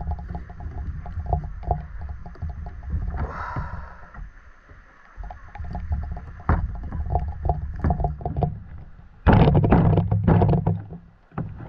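A cleaver pressed and worked down through a needlefish's body and backbone, giving runs of small cracks and clicks and a louder crunching stretch near the end as the blade goes through, over a steady low rumble.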